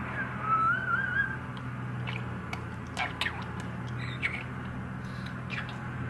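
Budgerigar warbling: a wavering whistled note lasting about a second near the start, followed by scattered short chirps and clicks.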